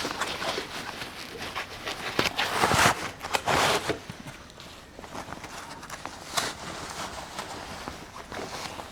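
Rustling and scuffing of the animatronic's costume pants being pushed down over its foam leg padding, in uneven bursts that are loudest a few seconds in and quieter afterwards.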